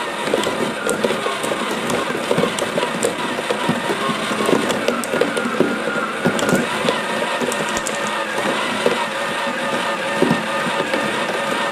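Battery-motor-driven cardboard marble run running: a steady small-motor hum with glass marbles rattling and clicking along the cardboard tracks.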